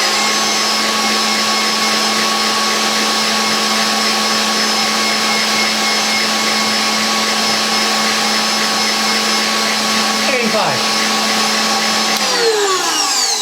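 KitchenAid Pro 600 stand mixer running unloaded at top speed (10) with no attachment, a loud steady motor whine. About twelve seconds in it is switched off and the whine falls in pitch as it winds down.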